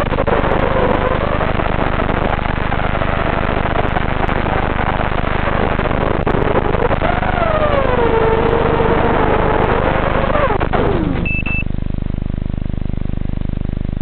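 An FPV racing quadcopter's motors and propellers, picked up on the raw onboard audio over a hissy analog video link, whining and sliding up and down in pitch with the throttle. About eleven seconds in the motors wind down as the quad comes down in the grass. A brief high beep follows, leaving a steady electrical buzz.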